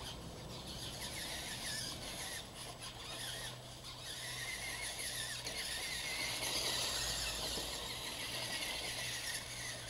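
Electric radio-controlled monster trucks driving on dirt, their motors and gearboxes whining high, the pitch wavering up and down with the throttle; the whine is strongest in the middle and fades near the end.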